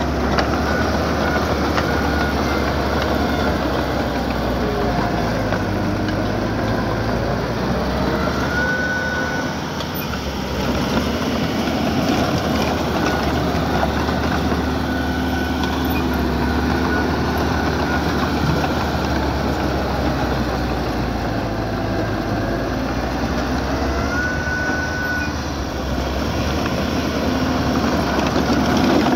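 Heavy-equipment engine running steadily under work, with a dense mechanical clatter over a low rumble. Two brief high squeals come through, about nine seconds in and again near the end.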